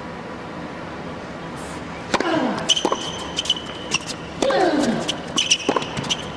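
Tennis rally on an indoor court: after a steady crowd hush, the serve comes about two seconds in, followed by sharp racket strikes on the ball and high squeaks of shoes on the court. With his shots, the server grunts, each grunt falling in pitch.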